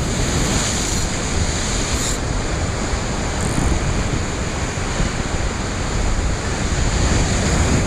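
Ocean surf breaking and washing over rocks, a loud steady wash of water, with wind rumbling on the microphone.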